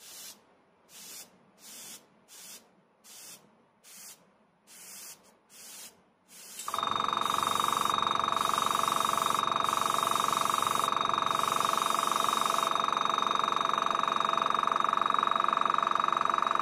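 Airbrush spraying in short puffs of hiss, about one and a half a second. About seven seconds in, the HSENG AS18TB 1/6 HP airbrush compressor cuts in and runs steadily with a loud hum, refilling its 1-litre air tank, while longer spray hisses go on over it.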